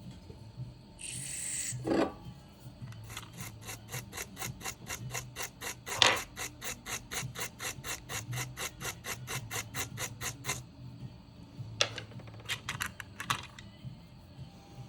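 Rapid, even scraping strokes, about five a second, of a small hand tool on a laptop circuit board, with a sharp click about six seconds in and a short hiss near the start.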